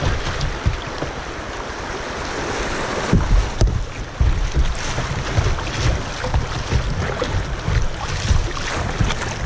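Fast creek water rushing and splashing around a kayak's plastic bow as it runs through riffles, with water slapping over the bow near the end. Wind buffets the microphone in low rumbles throughout.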